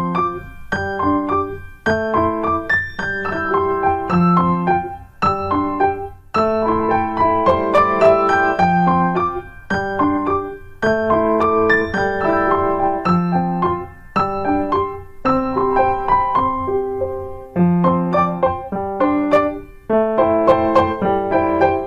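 Piano music played in short phrases of a few seconds, each separated by a brief pause.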